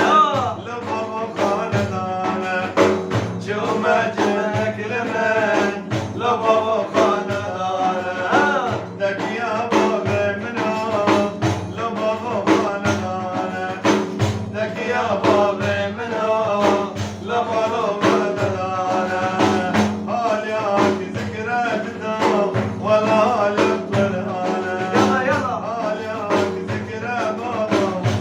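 A man singing a Kurdish madih, a religious praise song, in a wavering melodic line over a steady held drone, with frequent hand-drum strikes keeping the beat.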